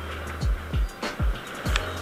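Background music with a heavy, deep bass drum beat about twice a second over held bass notes and crisp high percussion ticks.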